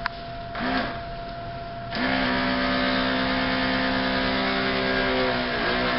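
A small electric motor switches on about two seconds in and runs with a steady hum, dipping briefly near the end. A click and a short sound come before it.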